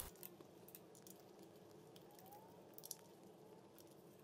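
Near silence, with a few faint small clicks from a screwdriver turning out the small T10 Torx screws around a wiring port on a drive-unit housing.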